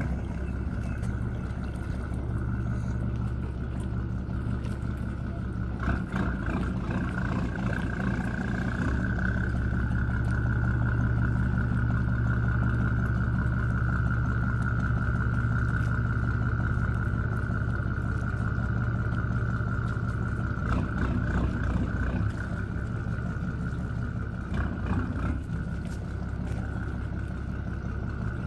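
Motorboat engine running steadily: a low drone with a constant high whine over it, and a few brief knocks about six seconds in and again past twenty seconds.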